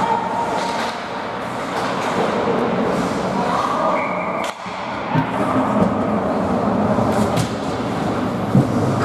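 Ice hockey game in play: a steady wash of rink noise with scattered clacks and thumps from sticks, puck and boards, briefly dropping out about four and a half seconds in.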